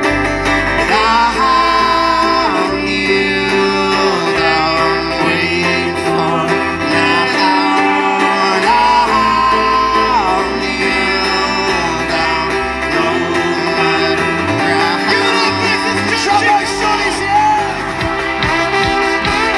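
Live folk-rock band playing, with strummed acoustic guitar and voices singing long held notes over a steady bass pulse.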